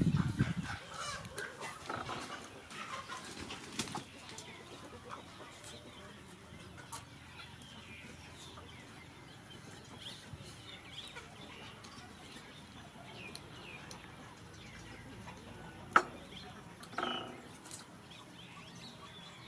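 Hens clucking now and then, with soft handling and mouth noises from someone eating with their hands. A low thump right at the start, a sharp click about sixteen seconds in, and a short call a second later.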